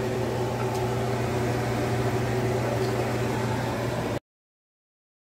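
Large stockpot of seafood boil at the boil on an electric stove: steady bubbling with a low hum underneath. The sound cuts off abruptly about four seconds in, followed by dead silence.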